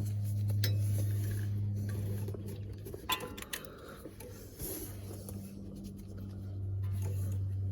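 A few sharp metallic clicks and taps from hand tools working on a car's coolant temperature sensor, about three seconds in, over a steady low hum.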